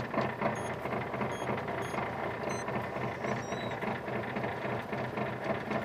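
Rally car's engine idling steadily, heard from inside the cabin while it waits to start the stage.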